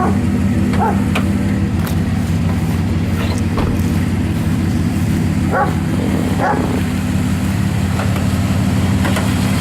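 1998 Dodge Dakota's 3.9-litre V6 running steadily at idle, a loud even rumble, with a few short high calls over it.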